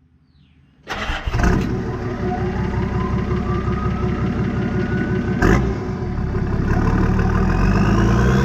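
Turbocharged Nissan TD42 4.2-litre six-cylinder diesel running, its turbo whistling and rising in pitch as it spools up. A brief burst of noise comes about halfway through, then a second whistle climbs higher near the end as the revs rise.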